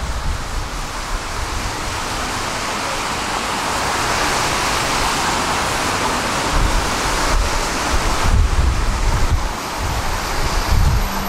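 Tram in motion: a steady hiss and rumble of wheels running on the rails, with deeper low rumbles that come and go in the last few seconds.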